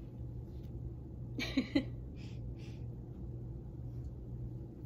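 Quiet room tone with a steady low hum, broken about a second and a half in by a brief wordless vocal sound from a woman, followed by two short, soft noises.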